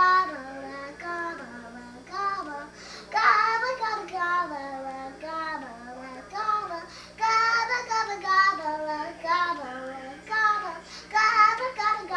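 A young girl singing solo, in short phrases that swoop up and down in pitch with brief pauses between them.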